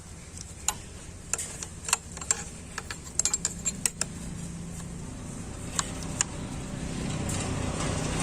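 Scattered sharp metallic clicks and taps of hand tools working on a diesel engine's injector fittings, over a low hum that grows louder toward the end.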